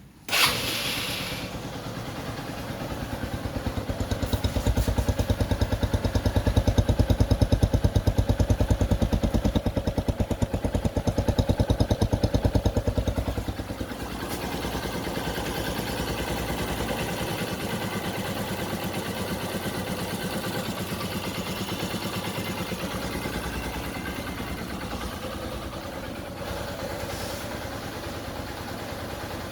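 Honda XR150's air-cooled single-cylinder four-stroke engine running after a top-end rebuild, with a steady, even beat. It starts abruptly just after the beginning, runs louder for the first dozen seconds or so, then settles to a quieter steady idle about halfway through.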